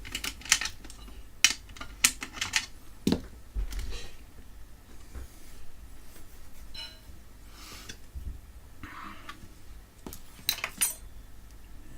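Small metal parts of a UPS being handled and fitted by hand: scattered sharp clicks and light clatter, a duller knock about three seconds in, and another quick run of clicks near the end.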